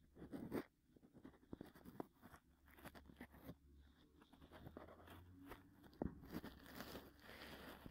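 Cotton swab rubbing and scraping around the outer ear, recorded binaurally close to the microphone: faint, irregular scratchy strokes, with a sharper scrape about six seconds in.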